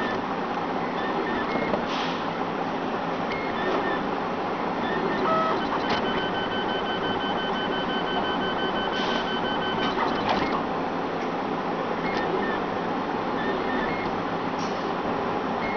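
RapidBot 2.0 3D printer at work: its stepper motors whir and buzz steadily as the hotend travels back and forth laying down a part. Short high whines come and go as the moves change, and one is held for about four seconds midway.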